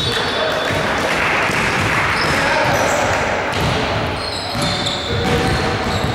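Basketball game on a hardwood gym floor: the ball bouncing and sneakers squeaking, with players' voices in the background, all echoing in the hall.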